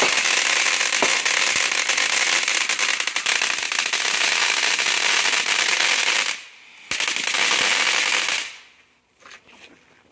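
Ground fountain firework spraying sparks with a loud, dense crackling hiss. It drops out for about half a second some six seconds in, comes back, and dies away about a second and a half before the end.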